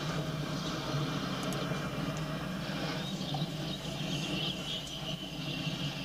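Freight train passing: the steady rumble and clatter of covered hoppers, a tank car and boxcars rolling on the rails. A faint high-pitched whine joins about halfway through.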